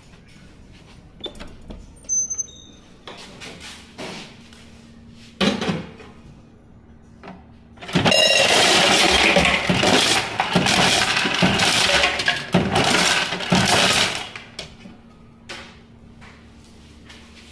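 Hotel ice machine dispensing ice cubes into an ice bucket: a loud, dense clatter of falling cubes starting about eight seconds in and lasting about six seconds, over a steady low hum. Scattered knocks and clicks come before it as the bucket is handled.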